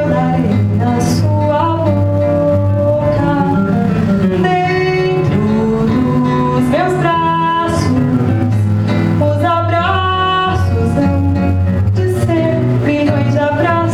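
A woman singing a Brazilian song, accompanied on acoustic guitar (violão).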